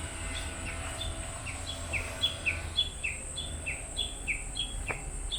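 A small songbird singing a rapid, even series of two-note phrases, a short high note followed by a lower falling one, about three phrases a second.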